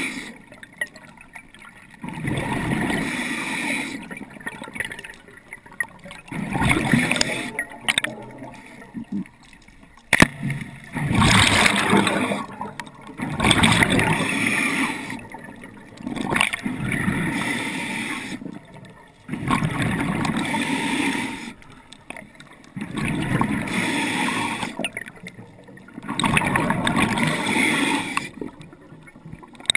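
Scuba breathing through a regulator underwater: a hiss on each inhale and a rush of bubbles on each exhale, in regular swells every two to three seconds. One sharp snap about ten seconds in, likely the speargun firing.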